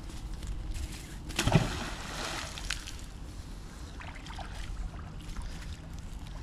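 A thrown magnet-fishing magnet splashes once into creek water about a second and a half in.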